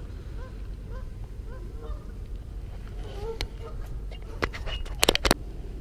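Waterfowl honking over and over, about two short calls a second, fading out around the middle. A few sharp clicks follow near the end.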